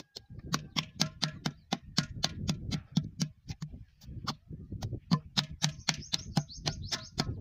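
Wooden paddle slapping the wall of an unfired clay water pitcher in quick, even strokes, about four a second: the potter is beating the pot's wall to shape and firm it.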